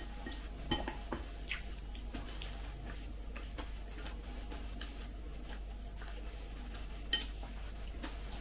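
A spoon clinking and scraping against a ceramic bowl of porridge while eating, a scatter of small clicks with two sharper clinks, one about a second in and one near the end.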